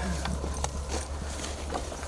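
Footsteps of a hunter wading back through shallow flood water in a flooded cornfield: irregular sloshing, knocking steps over a low rumble of wind on the microphone.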